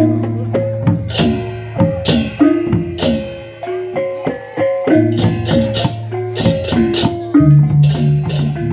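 Balinese baleganjur gamelan ensemble playing: short pitched gong-chime notes over a steady low gong tone, with crashing hand cymbals about once a second and drums. Near the end the low tone becomes louder and pulses.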